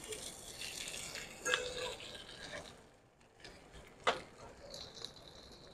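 Food tumbling and frying in a stir-fry robot's rotating drum wok, a soft sizzle and stir. About four seconds in, a stainless steel bowl knocks once on the steel counter, and a faint high tone comes in near the end.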